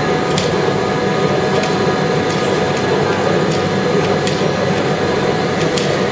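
Steady hum of a passenger train standing at a station platform, its ventilation and auxiliary machinery running, with a few faint, irregular high clicks.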